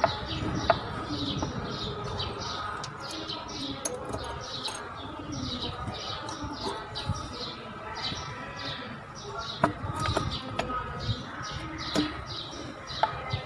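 A small bird chirping rapidly and repeatedly, about three or four short falling chirps a second, over a low background rumble, with a few sharp clicks.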